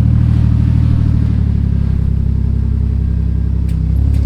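Toyota Chaser's 1JZ-GTE turbocharged straight-six engine running at a steady idle, a deep even rumble without revs.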